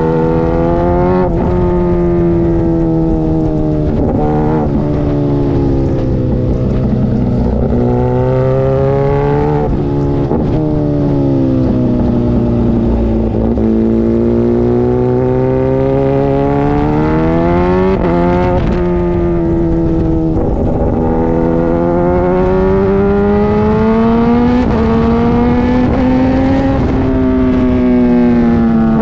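Yamaha MT-09's three-cylinder engine at track speed, heard from an onboard camera: the pitch climbs under acceleration, drops sharply at each gear change and falls off in long slides when slowing for corners, over steady wind rush.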